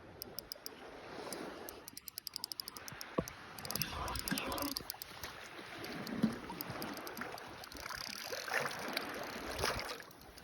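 Fishing reel clicking in fast, even runs as it is wound, twice in quick succession early on, over lapping water and wind, with a few knocks and small splashes.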